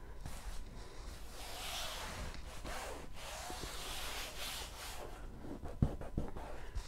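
Hands rubbing and sweeping across a diamond painting canvas to smooth it flat and press out trapped air, in two long swishing strokes, then a few light knocks near the end.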